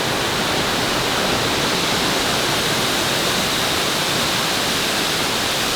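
Waterfall rushing: a steady, loud, even hiss of falling water with no let-up.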